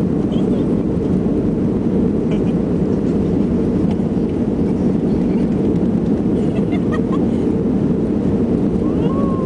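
Steady, loud, low rushing drone of an airliner heard from inside the passenger cabin, unchanging throughout, with faint voices over it.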